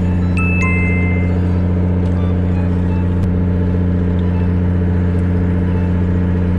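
Fishing boat's engine running at a steady idle, a constant low hum. Two short high electronic beeps sound about half a second in, one after the other.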